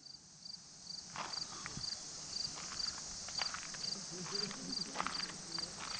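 Insect chirping in short pulsed high trills about twice a second over a steady high insect hiss, with scattered footsteps and faint distant voices.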